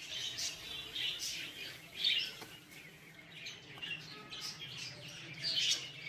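Caged budgerigars chirping: many short, high chirps, a little louder about two seconds in and again near the end.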